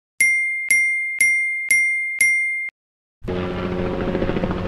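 Five identical bright chime dings, about two a second, each ringing out briefly: an added ding sound effect. About three seconds in, a dense, noisy sound effect starts and holds steady.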